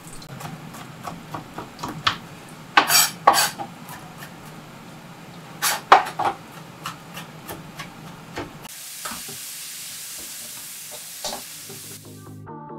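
Chef's knife chopping on a cutting board: a run of light taps with a few louder knocks. Then about three seconds of hissing sizzle from a hot pan, which cuts off sharply, and electronic music begins near the end.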